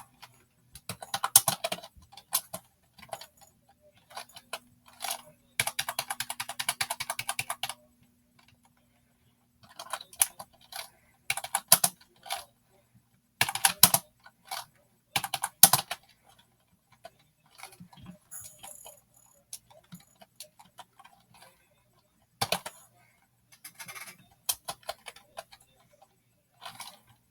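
Typing on an ONN computer keyboard: irregular clusters of key clicks separated by short pauses, with a fast, even run of keystrokes about six seconds in.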